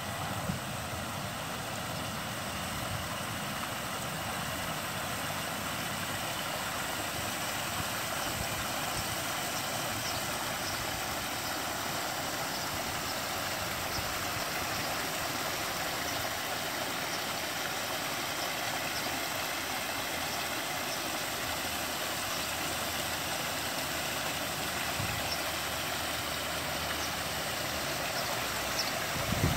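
Steady rush of water spilling down a pondless waterfall, with a few low bumps near the end.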